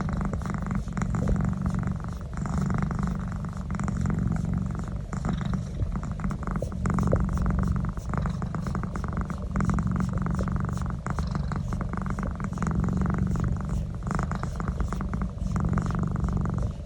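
Domestic cat purring steadily while its neck is massaged, the purr swelling and easing with each breath.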